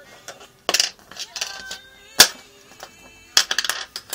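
Metal CR2032 lithium coin cells clattering onto a hard tabletop: two quick rattling bounces, each with a short metallic ring, and one sharp click about two seconds in, the loudest.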